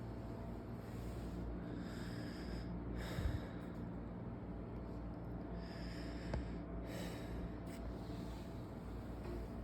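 A patient breathing deeply in and out through a half-open mouth for lung auscultation: several separate breaths of about a second each. A short thump about three seconds in.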